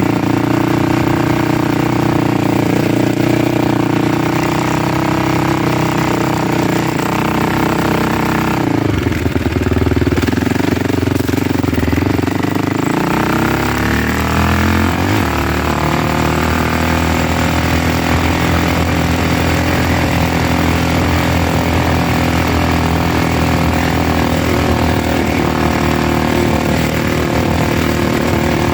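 Motor vehicle engine running steadily. About nine seconds in the note drops away, then it climbs in pitch over a couple of seconds and settles into a steady run again, as when the vehicle slows and then picks up speed.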